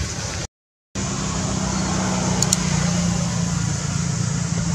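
A steady low mechanical hum over a background of even noise. The sound cuts out completely for about half a second near the start.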